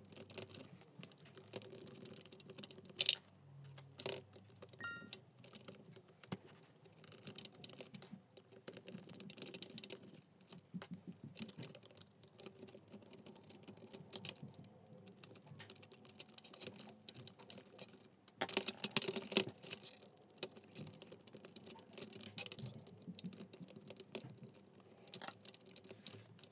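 Small screwdriver and fingers working on a plastic 1/16-scale RC truck chassis, taking out the leaf-spring screws: scattered light clicks, ticks and scrapes of screws and plastic parts, with a louder burst of clicking about two-thirds of the way through.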